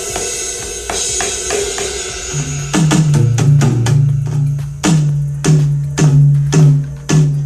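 AMW ED3 electronic drum kit on its preset kit 8, played through a loudspeaker: a run of quick strokes over a ringing cymbal wash. About two and a half seconds in it changes to loud drum hits, roughly two a second, each with a long deep boom.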